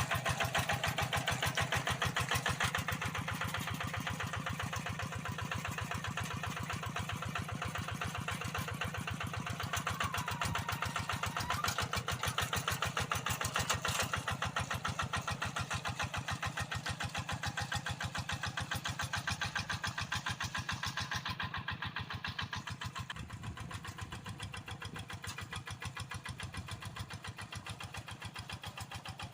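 Kubota RD85DI single-cylinder diesel on a Quick G1000 hand tractor running steadily, its firing pulses coming fast and even, growing slightly quieter over the last several seconds.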